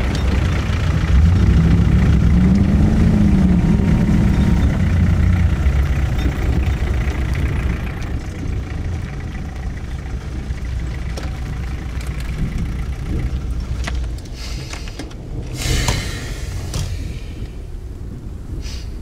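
Low rumble of a vehicle engine running. It is heavy for the first several seconds, with a rise and fall in pitch, then settles to a quieter steady drone, with a brief rush of noise about sixteen seconds in.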